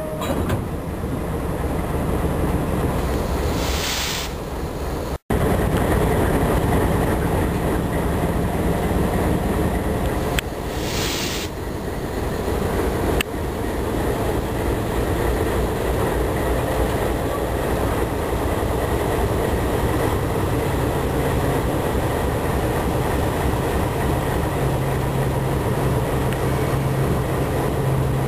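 Diesel locomotive running steadily as the locomotives roll slowly along the track, with two short hisses of air about four and ten seconds in.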